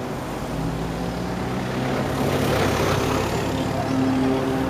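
Aircraft flying past: a steady engine drone with a rushing sound that swells about halfway through.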